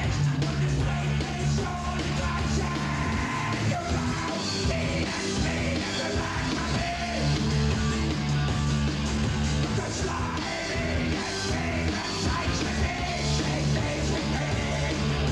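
Live punk rock band playing guitar and drums at full volume, with a singer shouting the vocals.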